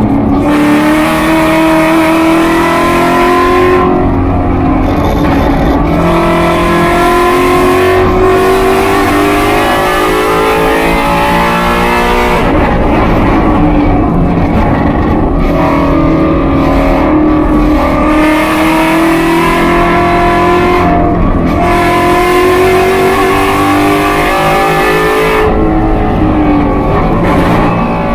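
Race car engine heard from inside the car at full racing pace, its pitch repeatedly climbing and then dropping as it accelerates, shifts and slows for corners.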